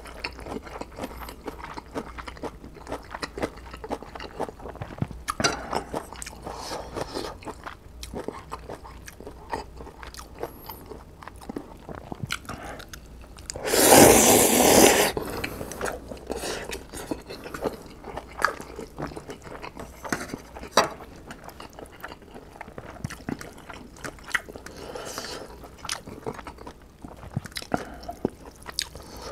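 Close-miked eating of instant ramen: wet chewing and mouth smacks with many small clicks, and one loud slurp of noodles from a spoon about halfway through.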